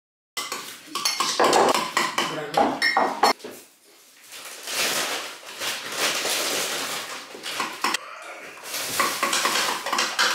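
Metal spoon stirring yogurt in a glass bowl, clinking and scraping against the glass: sharp clinks at first, a steadier scraping in the middle, then clinks again near the end.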